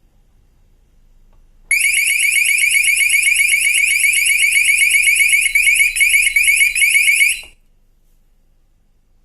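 Electronic siren of a magnetic door alarm sounding loudly in rapid, repeating rising sweeps. It starts suddenly about two seconds in and cuts off abruptly about two seconds before the end.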